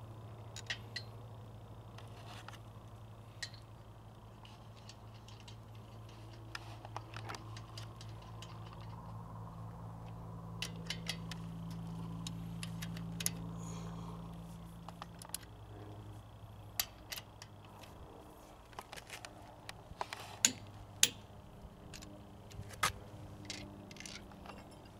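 Scattered metallic clicks and clinks of hand tools, a socket, wheel lock adapter and lug nut, being handled and fitted at a truck wheel, with two sharper clinks close together near the end. A low hum runs underneath and swells around the middle.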